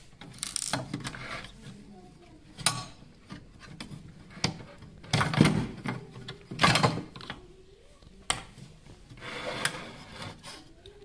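Hands working loose the metal parts and push-on wire connectors of a blower room heater's thermostat, giving irregular clicks, knocks and rubbing, loudest around the middle.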